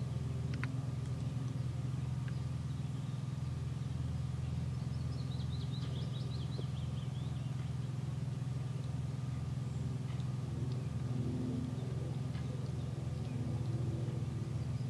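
A steady low hum with a faint pulsing beat, like a distant engine or machine running. A bird gives a short trilling call about five seconds in.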